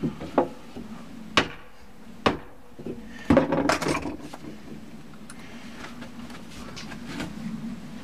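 Sharp wooden knocks and clatter as turned wooden balusters and the railing frame are handled and fitted: three single knocks about a second apart, then a longer clatter about three seconds in, followed by quieter handling noise.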